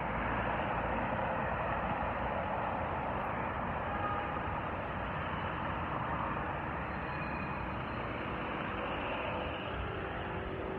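Steady city street traffic noise from cars, vans and taxis in slow-moving traffic.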